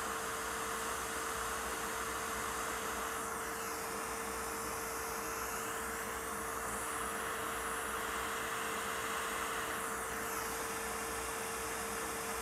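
Steady air hiss with a constant low hum from a running fan on a microsoldering bench; the higher part of the hiss shifts briefly at about three and a half seconds and again at about ten seconds.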